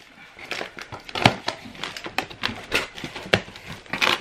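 Cardboard carton being opened by hand, its flaps pulled back and the snack bags inside handled: a run of irregular scrapes, crackles and knocks, the sharpest twice.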